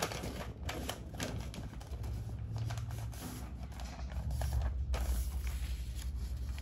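Scattered light clicks and taps over a low steady hum that comes in about two seconds in.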